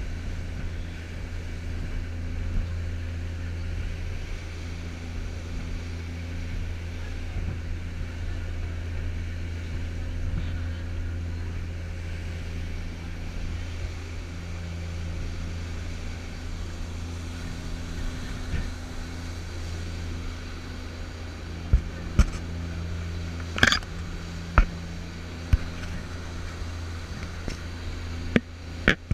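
Passenger boat's engines running steadily under way, a low drone with the rush of wind and the churning wake over it. Several sharp clicks or knocks come in the last seven seconds.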